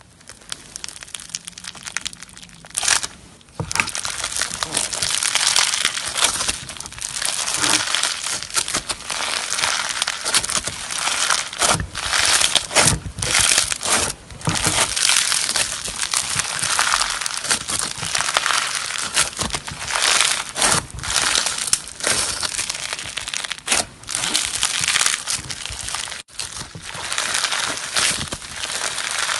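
Crunchy slime being squeezed and kneaded by hand, giving a dense, continuous crackling and crunching. It starts softly and turns loud about three and a half seconds in.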